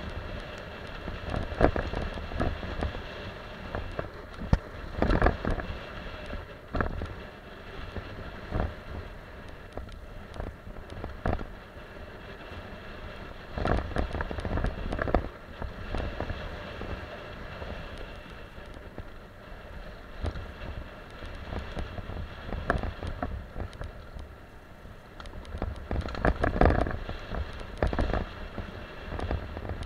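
Mountain bike ridden fast down a dirt trail, heard from a camera on the bike or rider: tyres rolling over dirt and stones, with frequent sharp rattles and knocks from the bike over bumps and a steady rumble of wind on the microphone. The knocking comes in heavier bursts over a few rougher patches.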